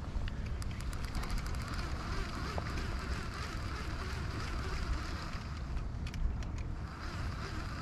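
A boat's motor running steadily with a low rumble. Between about half a second and a second and a half in comes a quick run of faint ticks.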